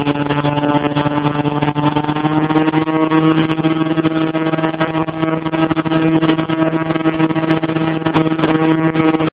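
Portable fire pump's engine running at steady high revs, pumping water through the hose line to the nozzles. A single even engine note, held without change.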